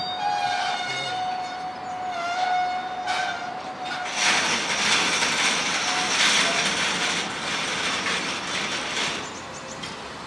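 Hooded freight wagons rolling past, their wheels squealing on the rails: a steady ringing squeal for the first few seconds, then a loud hissing screech from about four seconds in, easing near the end.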